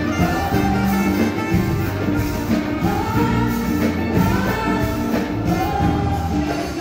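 A woman singing a melody into a microphone over a live band, amplified through the hall's PA, with long gliding sung notes over steady low backing.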